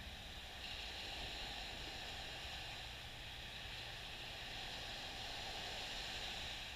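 Small, gentle waves washing up on a sandy beach: a steady hiss of surf that swells about a second in and holds until near the end.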